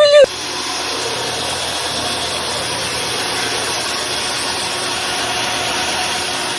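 A machine running steadily: an even, hissing mechanical noise with a faint hum, starting abruptly a moment in.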